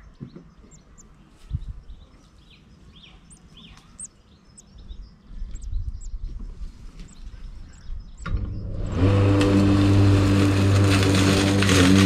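Faint, short, high bird chirps, then about eight seconds in an engine comes in and runs loud and steady.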